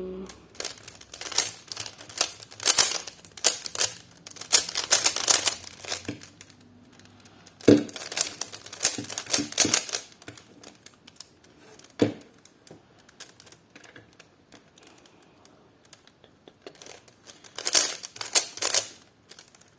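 Plastic 3x3 Rubik's cube being turned by hand during a solve: bursts of rapid clicking and rattling turns, a second or more each, with short pauses between.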